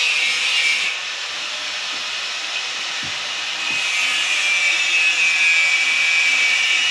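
Steady hiss, with two faint clicks about three seconds in.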